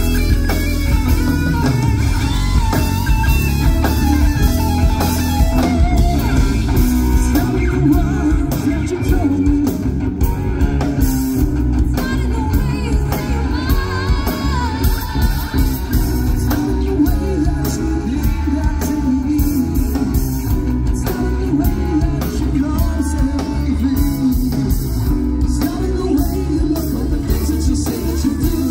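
Live band playing a yacht rock song on electric guitar, bass guitar and drums, with singing.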